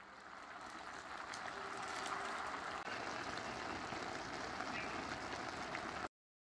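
Seabass hot pot broth boiling in a stainless steel pot: a steady bubbling hiss with fine crackle. It grows louder over the first two seconds, holds steady, then cuts off suddenly near the end.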